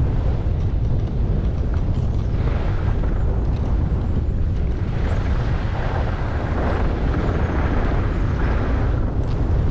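Wind buffeting the microphone of a skier moving downhill, a steady loud rumble. A hiss of skis sliding on snow swells through the middle and fades near the end.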